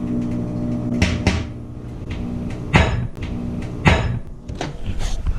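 Orbeez water beads bursting with sharp pops inside a running microwave oven, over the oven's steady hum, which fades about four seconds in. There are about five pops: two close together about a second in and the loudest near three and four seconds. The beads have soaked up water that boils as they heat, and they burst.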